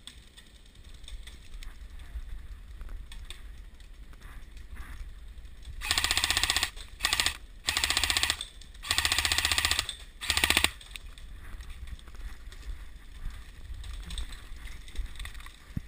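Airsoft rifle firing full-auto, about five rapid bursts of shots in quick succession, each a second or less long, a little after the middle.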